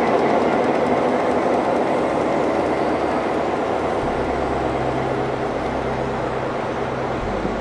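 Diesel locomotive running at idle beside the standing passenger train: a steady engine drone with a low hum, slowly getting a little quieter.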